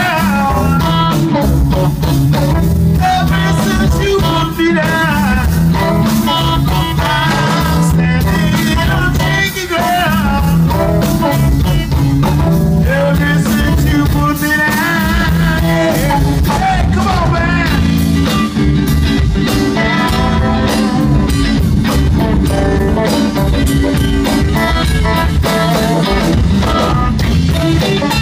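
Live electric blues band playing: amplified blues harp with bending, wavering notes over electric bass and drums.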